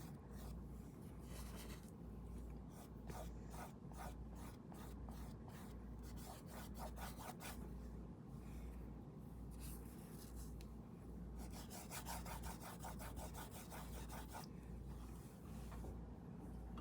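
Paintbrush scrubbing paint on in runs of short, quick rubbing strokes, faint, with brief pauses between runs, over a steady low hum.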